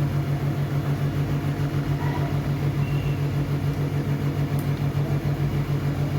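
Percussion massage gun (fascia gun) running on tight spinal muscles, a steady motor hum with a fast, even pulse.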